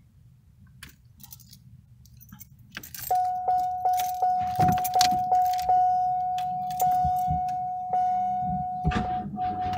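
Keys jangling at the ignition of a 1994 Oldsmobile Ciera, then the dash warning chime dinging as the ignition comes on. The chime dings quickly about eight times, then slows to about one ding a second, with a louder rattle near the end.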